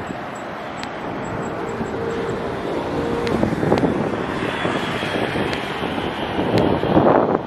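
Steady rush of road traffic, growing louder from about three seconds in. Wind buffets the microphone, loudest about four seconds in and near the end.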